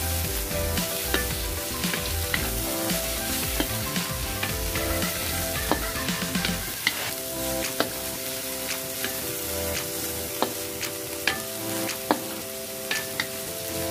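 Bean sprouts, snow peas and carrot sizzling in a stainless steel pan while a wooden spatula stirs and tosses them, with frequent sharp clicks of the spatula against the pan.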